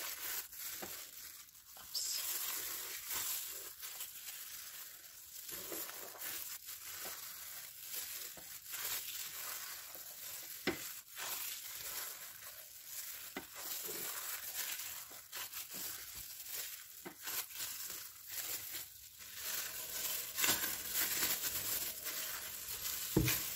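Hands in thin plastic food-prep gloves mixing and kneading cornstarch into mashed cassava in a glass bowl: an irregular crinkling and rustling of the gloves with the soft crunch of the starch being worked into dough.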